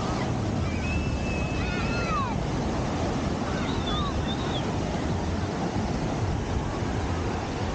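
Ocean surf breaking and washing up a sandy beach, a steady rushing noise mixed with wind on the microphone. A few brief high-pitched calls come through over it near the start and again about halfway.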